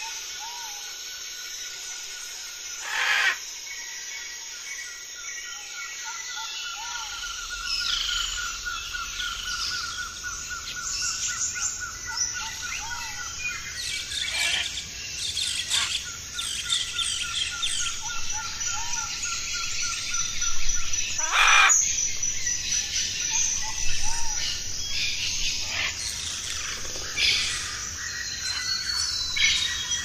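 Many birds chirping and calling in a forest soundscape, over a steady rapid trill and a high thin whine that run through most of it. A few short, sharp calls stand out, one about three seconds in and one about twenty-one seconds in.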